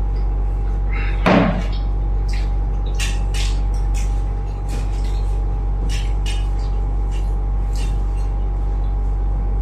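Light clinks and taps of dishes and cutlery during a meal, scattered short clicks over a steady low hum with a faint whine. One brief louder sound comes about a second in.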